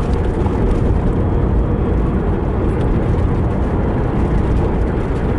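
Steady road and engine noise of a car driving along, a constant low rumble with hiss above it.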